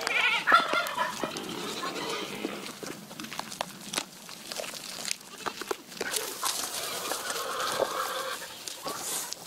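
Bleating from livestock, with one call in the first second, among scattered small clicks and rustles.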